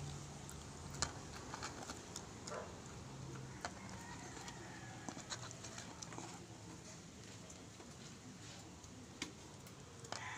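A dog snapping up and chewing french fries from a hand: faint scattered clicks and snaps. A low steady hum fades out after about three seconds.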